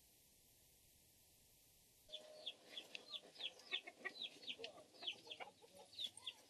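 Near silence for about two seconds, then chickens start up: many quick, high, downward-sliding cheeps with lower clucking notes beneath.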